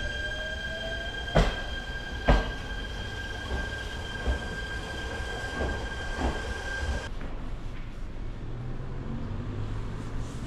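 A Shinano Railway electric train pulling out of the station. A whine rises in the first second, and a steady high squeal runs under the wheels knocking over the rail joints: two loud clacks in the first few seconds, then lighter ones. It cuts off suddenly about seven seconds in.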